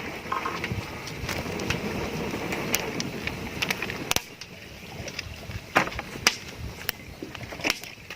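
Whole spices sizzling in hot fat in a cooking pot, with sharp clicks scattered throughout. The sizzle is softer from about halfway through.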